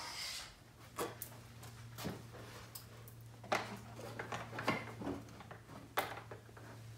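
Scattered knocks and clinks of things being handled on a workbench, over a steady low hum.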